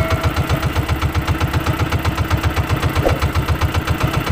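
Outrigger boat's engine running steadily, a rapid even low thudding of about eight beats a second.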